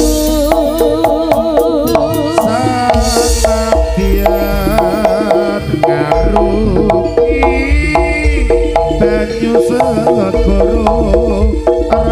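Live jaranan ensemble music: kendang hand drums beating a quick, dense rhythm over gamelan gongs and metallophones, with a wavering melody line on top.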